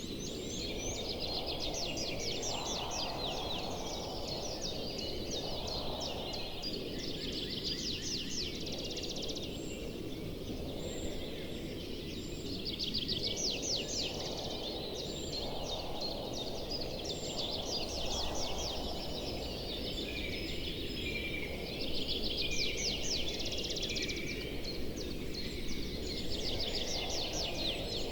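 Outdoor nature ambience: bouts of fast, high chirping trills that come and go every few seconds over a steady low rushing noise.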